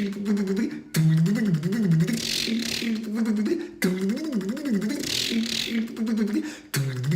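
A man's mouth imitation of a car engine cranking and failing to start: a warbling, pulsing vocal sound repeated in phrases about every three seconds, each ending in a hiss.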